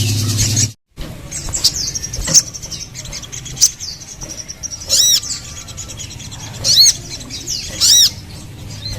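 Little spiderhunter (sogon) calling: sharp chirps, then loud arching squeaky calls that rise and fall, coming every second or two. Under a second in, a loud humming sound cuts off abruptly before the calls begin.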